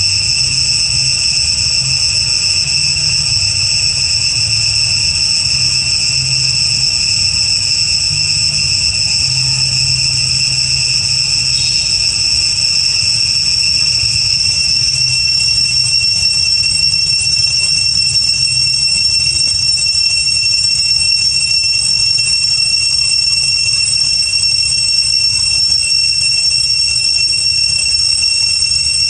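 Steady, loud, high-pitched drone of insects, most likely cicadas, held without a break.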